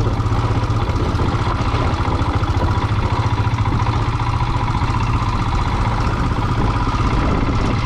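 Royal Enfield motorcycle's single-cylinder engine running steadily with an even, rapid thump.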